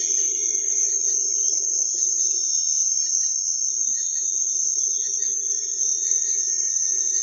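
Night insects chirping in a steady, high-pitched chorus, with a quieter low whir underneath that fades somewhat a couple of seconds in.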